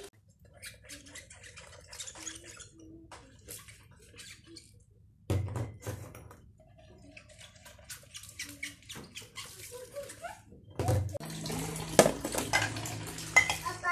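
Glass jars and plastic food containers being washed in a stainless steel sink: scattered knocks and clinks of glass and plastic, with splashing water. A steadier rush of running water comes in for the last few seconds.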